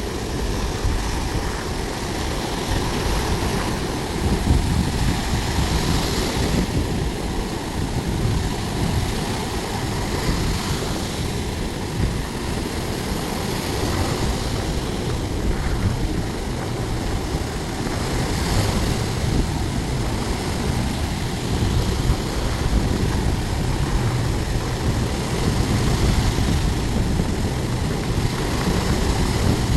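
Sea waves breaking and washing on the shore, surging every few seconds, over a constant rumble of wind on the microphone.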